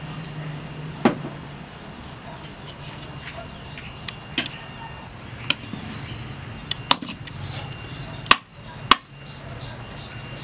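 Sharp separate clicks and knocks of a spoon against plates and a plastic cup on a table as food is eaten, about half a dozen scattered through, the loudest two close together near the end, over a steady low hum.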